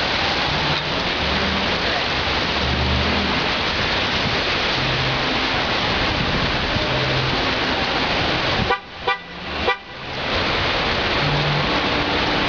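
Steady hiss of heavy rain, interrupted about nine seconds in by a car horn giving a few short toots.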